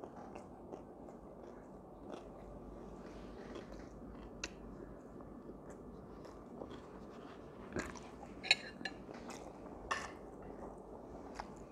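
A man eating: soft chewing and mouth sounds, with a few small clicks and taps of a spoon and dishes over the last few seconds.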